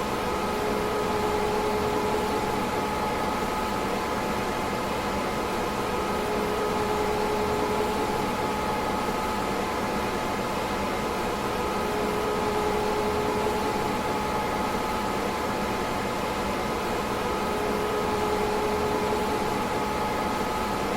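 DEC PDP-11/44 minicomputer running steadily: an even whirring hum with a few steady tones, and a lower tone that swells in and out about every six seconds.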